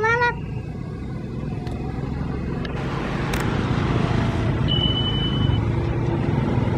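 Tour bus engine and road noise swelling as the bus drives past, loudest about four seconds in. There is a short rising tone right at the start and a thin high tone for under a second about two-thirds through.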